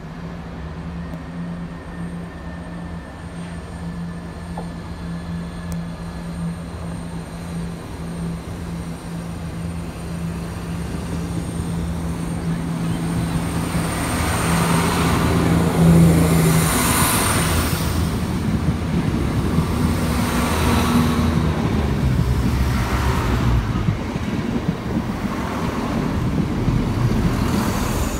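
Chiltern Railways diesel multiple unit passing close along the platform. A steady low engine hum grows louder, then gives way to the rush and rumble of wheels, swelling several times as the coaches go by.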